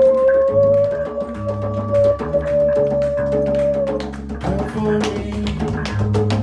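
Live band music: a bass guitar line and hand-drum percussion under one long held high note for about the first four seconds, after which the drumming gets busier.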